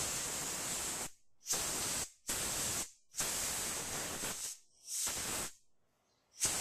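Compressed air blown in short bursts through a mower carburetor's jets to clear any dirt blocking them: five hissing blasts of roughly half a second to a second each, then a brief one at the end.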